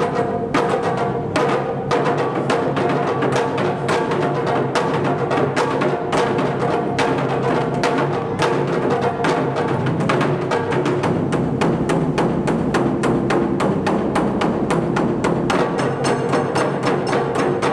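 Japanese taiko drum ensemble playing: a large rope-laced drum and smaller barrel drums struck with wooden sticks in a loud, driving rhythm. The strokes grow denser and faster about halfway through.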